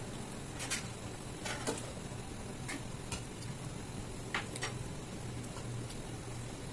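Sparse, soft clicks and ticks of eating by hand: fingers gathering pulao and paneer curry on a steel plate, with mouth sounds of chewing, over a low steady hum.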